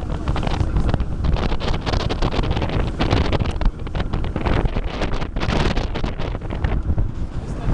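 Heavy wind buffeting the microphone aboard a small motorboat under way, over the rush of water and the boat's running engine.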